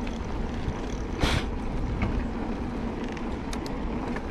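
Wind rushing over the microphone with the rolling noise of a mountain bike being ridden on the trail, and a short louder rush about a second in.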